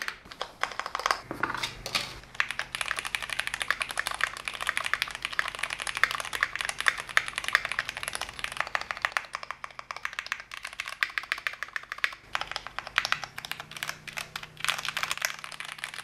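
Fast, continuous typing on a gasket-mounted Thera75 V2 mechanical keyboard with a polycarbonate plate, Cherry MX Black Clear Top ('Nixie') linear switches and GMK Shoko keycaps: a dense run of quick keystroke clicks with a brief pause about twelve seconds in.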